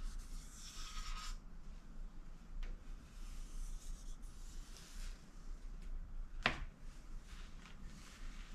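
Handling of a PS5's plastic cover: a light rubbing scrape for the first second or so, then quiet handling with a faint tick, and one sharp click about six and a half seconds in.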